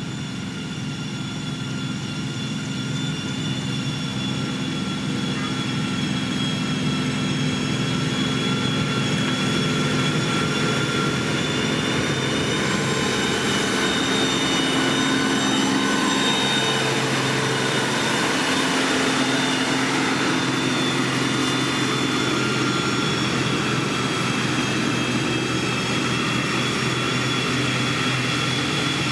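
Diesel engine of a heavy road-construction machine running under load, a steady drone with a high whine over it, growing louder over the first several seconds and then holding steady.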